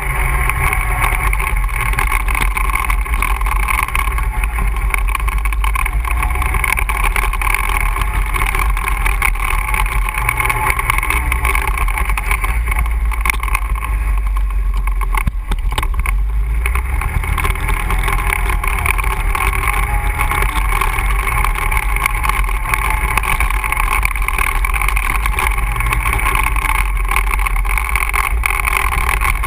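ATV engine running steadily while riding, at a constant, even level throughout.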